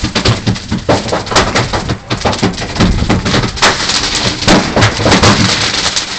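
Fireworks going off in a burning garage: a dense, uneven string of sharp bangs and crackles with no break, some louder reports standing out.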